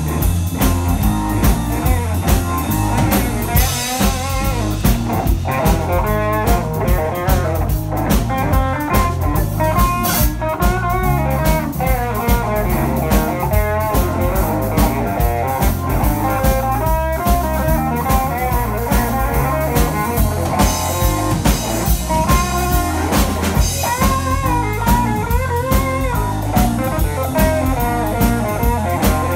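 Live blues band playing an instrumental passage: electric guitar playing lead lines with bent notes over electric bass, keyboard and a drum kit keeping a steady beat.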